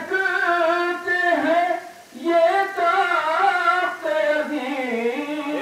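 A man's voice reciting verse in a sung, melodic style, with long wavering held notes. It comes in phrases, with a brief pause about two seconds in.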